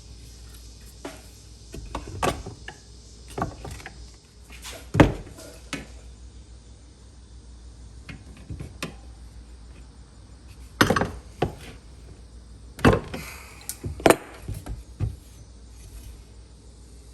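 Irregular clicks and knocks of hand work on a bicycle wheel being trued, a dozen or so sharp taps scattered through, the loudest about five seconds in and a cluster a little past the middle.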